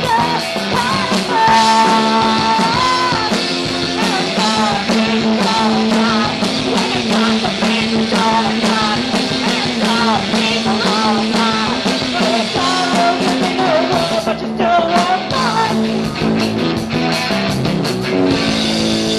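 Live punk rock band playing: electric guitar, bass and drums, with a woman singing over them.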